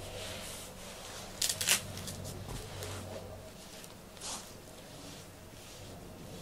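A few short rustles: a quick cluster about a second and a half in and one more a little after four seconds, over a faint steady low hum.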